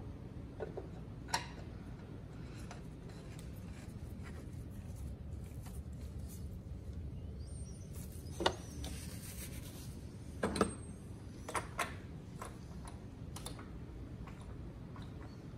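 Scattered light clicks, taps and rubbing of gloved hands on plastic engine parts over a steady low hum, the loudest knocks a little past halfway: the composite oil filter canister of a 2.7 EcoBoost being handled and fitted back into its housing.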